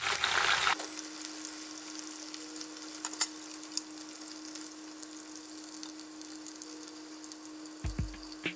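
Chicken pieces sizzling in shallow oil in a frying pan, a steady frying hiss over a faint steady hum. A few light clicks of chopsticks come around the middle, and several low knocks near the end as pieces are lifted out onto a metal wire rack.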